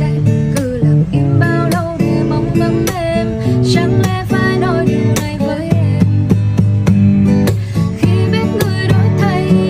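Background music: a song with acoustic guitar, a singing voice and a steady beat.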